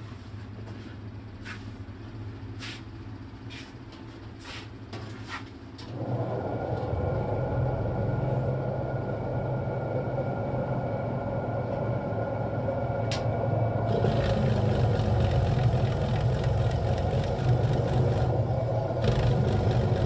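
12-volt DC motor driving the pulsator of a homemade washing machine, running with a steady hum that gets louder about six seconds in and again about fourteen seconds in. A few light ticks in the first few seconds.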